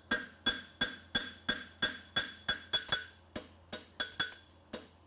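A farrier's hammer striking a red-hot steel horseshoe on an anvil in a steady run of blows, about three a second. Each blow rings briefly.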